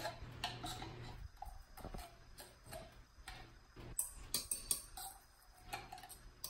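Spoon scraping and clicking against the inside of an open tin can of sweetened condensed milk: a run of irregular small clicks, louder for a moment about four seconds in.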